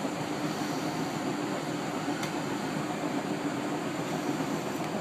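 Bendix 7128 front-loading washing machine running in its spin cycle: a steady whir with a faint constant hum.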